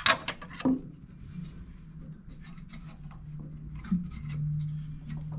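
Screwdriver working the cover-plate screws on a Mythos Basic espresso grinder: small metallic clicks and scratches, with a couple of sharper clicks near the start. A faint low steady hum runs underneath.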